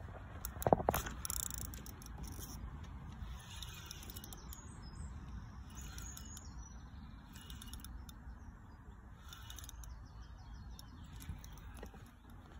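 A feeder rod and spinning reel handled as a carp is struck and played: a cluster of sharp knocks about a second in, then scattered clicks from the rod and reel. Birds chirp in the background.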